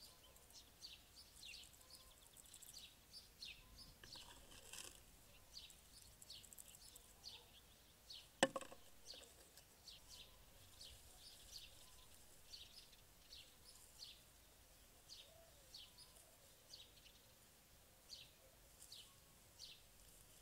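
Faint birdsong: short, quick descending chirps repeating several times a second, with a single sharp click about eight seconds in.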